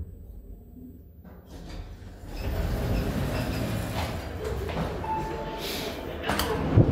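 Orona lift's sliding doors opening about two seconds in, after a low hum in the stopped car, letting in the louder rumble of the metro station. There is a short beep about five seconds in, and near the end a sharp clunk as the latch handle of a metal door is pushed down.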